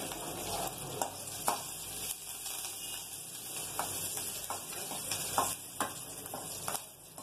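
Oil sizzling in a metal kadai as a tempering of mustard seeds, urad dal, dried red chillies, curry leaves and asafoetida fries, stirred with a metal ladle that clicks sharply against the pan several times.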